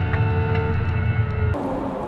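Sports car engine heard onboard during a track lap, running at steady revs. About one and a half seconds in, the sound cuts abruptly to a different, quieter onboard engine recording.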